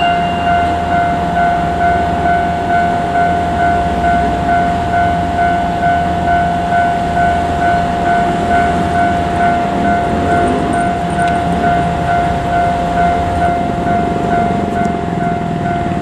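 Japanese railway level-crossing warning bell ringing, an electronic two-tone ding repeating about two and a half times a second, over a low rumble.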